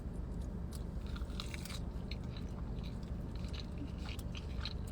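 Close-up chewing of a big mouthful of soft french fries, with scattered small wet clicks and light crunches from the mouth.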